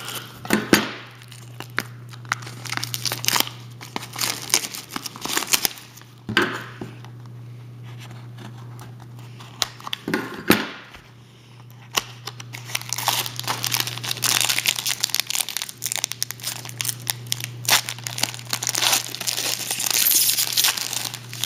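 Foil wrapper of a trading-card pack crinkling and tearing as it is handled and opened, in uneven spells of crackling that go quieter for a few seconds in the middle. A steady low hum runs underneath.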